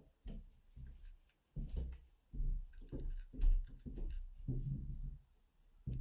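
Irregular light clicks and soft knocks as small brass lock pins and springs are handled and set down in a plastic pinning tray.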